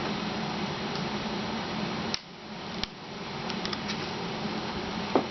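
Small plastic clicks and ticks from the laptop's screen bezel being pried loose, over a steady hum, with a brief sharp squeak about five seconds in.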